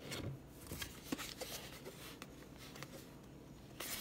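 Trigger sprayer being screwed onto a plastic spray bottle: faint scattered plastic clicks and light scraping of the threads.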